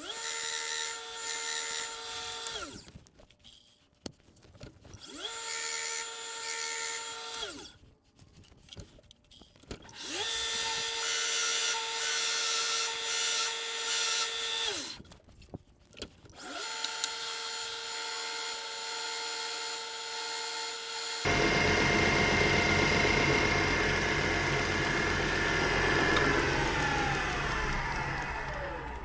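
Belt grinder running in four short bursts during axe sharpening, each one spinning up to a steady whine and winding down again. Then a longer, louder and rougher grinding run that spins down, falling in pitch, near the end.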